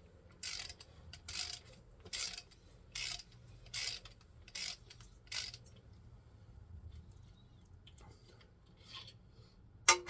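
Socket ratchet being worked back and forth on the engine's bolts, a burst of ratcheting clicks on each swing, about one swing every 0.8 s, stopping about five and a half seconds in. A few faint clicks follow, then a sharp metallic clank right at the end.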